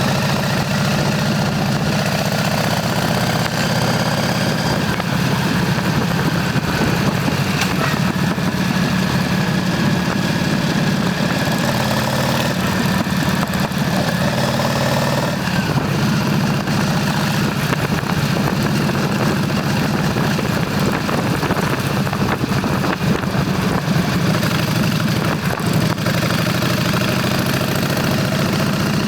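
Motorcycle engine running steadily, with no break or change in level.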